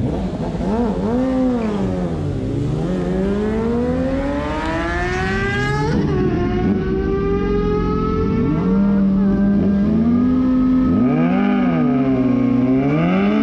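Sport motorcycle engines at a drag strip. One is revved up and down at the start line, then pulls away in a long rising run as it launches. About 6 s in there is a cut; after it another sport bike is blipped several times and held at high revs while standing.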